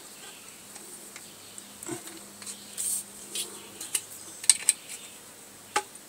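Copper pipe fittings clinking and scraping as they are pushed together by hand for a dry fit: a few short, separate metallic clicks, the sharpest about four and a half seconds in.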